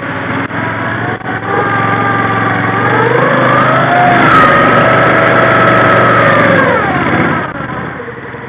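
Argo amphibious ATV engine revving hard under load, climbing out of a deep muskeg hole: the pitch rises about two seconds in, holds high and loud, then drops back about seven seconds in.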